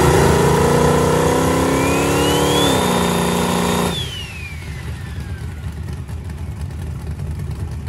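Turbocharged 364 cubic inch small-block Chevrolet engine with a GTR 102 turbo being brought up to spool: the engine note rises and the turbo whistle climbs and holds. About four seconds in, the revs suddenly fall away and the whistle winds down while the engine keeps running roughly. The owner puts the failed spool down to too much ignition timing pulled, which acted like a rev limiter.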